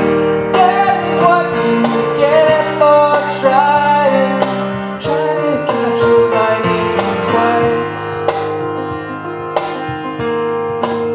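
Live performance of a pop-rock song in an instrumental passage between sung verses: guitar and keyboard playing a melodic line over steady chords.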